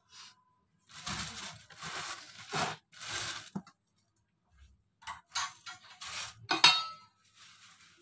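Kitchen handling sounds: a plastic bag rustling for a couple of seconds, then a clatter of steel utensils with a sharp ringing metallic clink near the end.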